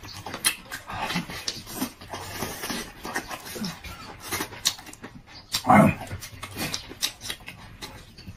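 Close-up eating noises of a man chewing and sucking on red-braised alligator meat: wet lip smacks, sucking and chewing clicks, with one louder slurp about two-thirds of the way in.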